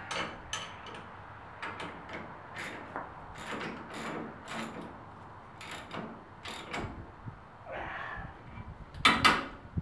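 Hand wrench tightening a bolt on a tractor's grader-blade mounting: a run of short metallic ratcheting strokes, about two a second, with a louder clatter near the end.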